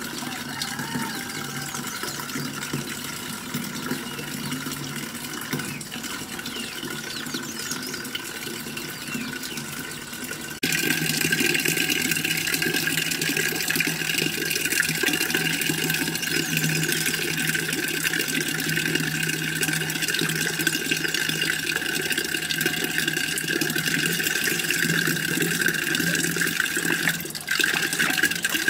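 A thin stream of water from a tap splashing steadily into an aluminium water pot as it fills, louder from about eleven seconds in.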